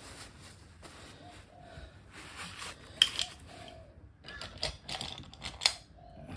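Small metal engine parts and tools being handled during motorcycle engine reassembly: scattered clicks and knocks with light scraping, the sharpest knock about three seconds in and another near the end.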